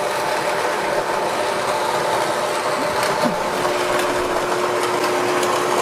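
Mockmill electric stone grain mill grinding whole wheat at its finest setting. It gives a steady motor hum with continuous grinding noise.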